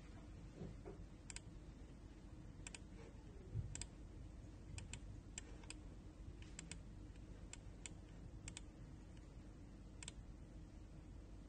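Computer mouse button clicking: about a dozen faint, sharp clicks at irregular intervals, some in quick pairs, over a low steady hum.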